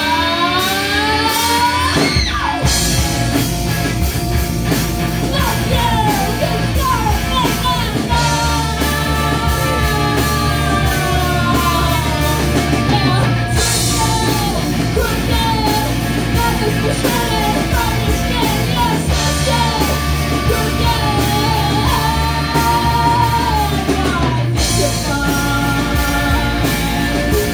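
Live rock band playing: sung vocals over electric guitars, bass guitar and drums.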